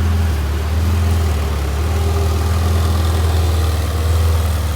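Ferrari 488 GTB's twin-turbo V8 idling steadily with a deep, even hum and no revving.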